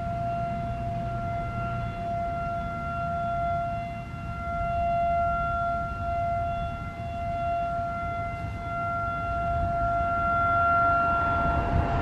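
Federal Signal 2001-SRN electronic outdoor warning siren sounding a steady alert tone at one unchanging pitch, growing louder and softer every few seconds.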